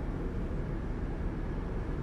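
Steady low rumble of a large ferry heard from its open deck, even throughout with no distinct events.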